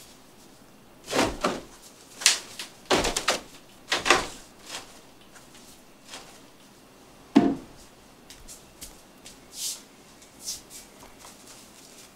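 Clothes being handled and dropped into a top-loading washing machine: fabric rustling, with a string of short plastic knocks and clatters from the laundry basket and the machine. The loudest is a single thump about seven seconds in.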